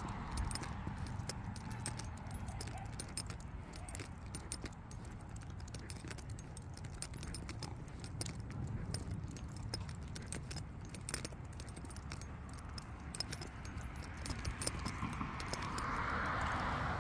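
Metal fittings on a dog's harness and leash clip jingling in quick, irregular clinks as the dog walks, over a low rumble that swells near the end.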